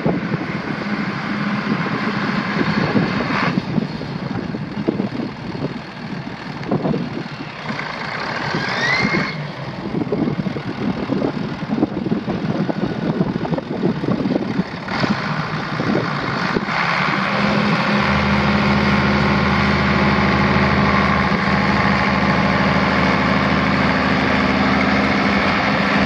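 Case 970 Agri King's six-cylinder diesel engine running, with wind buffeting the microphone; about two-thirds of the way through it settles into a steady idle.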